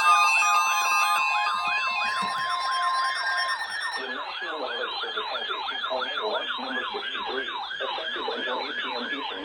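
Electronic siren in a fast yelp, its pitch sweeping up and down about three times a second. For the first three seconds or so it runs over steady electronic tones, and a lower-pitched sweep joins about four seconds in.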